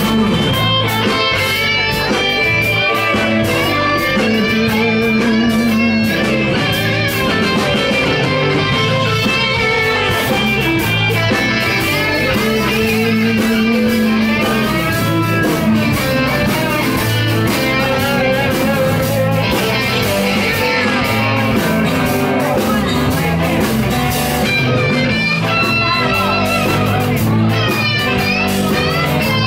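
Live rock band playing an instrumental passage: electric guitar lead lines with bent notes over strummed acoustic guitar and drums.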